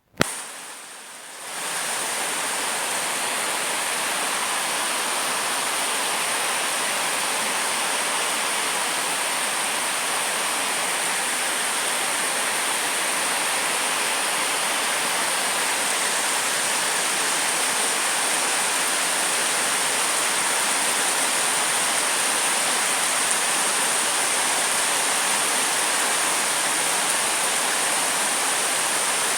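Heavy rainstorm: a steady, dense downpour of rain, starting abruptly with a click and settling into an even rush after a couple of seconds.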